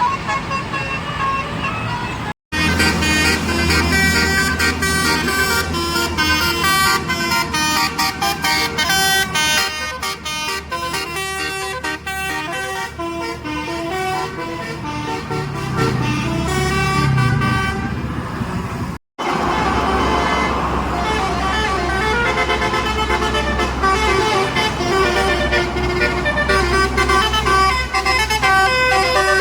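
Bus 'telolet basuri' multi-tone musical air horns playing melodies note by note, over the steady low running of the bus engines. Two brief breaks, about 2.5 and 19 seconds in, split it into three separate horn performances.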